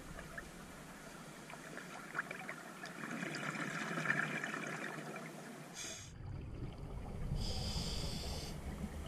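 A scuba diver breathing through a regulator, heard underwater through the camera housing: fizzing and crackling of exhaled bubbles, then low bubbling with a drawn-in breath hissing for about a second near the end.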